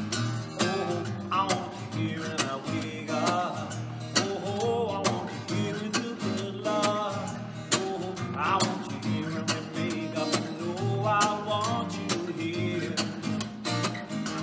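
A man singing to his own strummed acoustic guitar, with an even strumming rhythm throughout.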